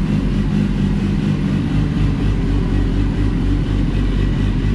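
BMW S1000RR inline-four engine idling steadily, the replacement engine on its first run after an engine swap.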